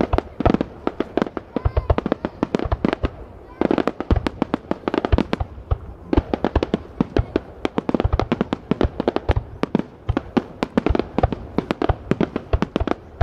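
Fireworks display: aerial shells bursting in a dense, unbroken barrage of sharp bangs, several a second.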